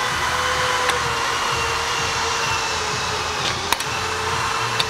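Steady airy whooshing drone of a running machine, like a blower or shop fan, with a faint wavering hum in it. A few light clicks come through, about a second in and twice near the end.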